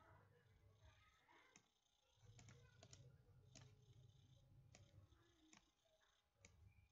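Near silence, with faint computer mouse clicks, about nine scattered through, over a faint low hum.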